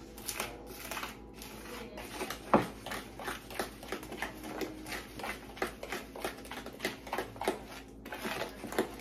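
Fork beating thick cornbread batter in a bowl: quick, uneven scraping and clicking strokes against the bowl, about two or three a second, with one sharper knock about two and a half seconds in.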